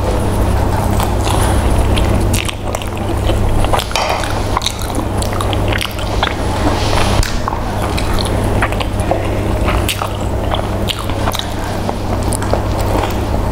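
Biting and chewing of a fried chicken drumstick, with wet squishes as rice is mixed by hand, in many short irregular crackles over a steady low hum.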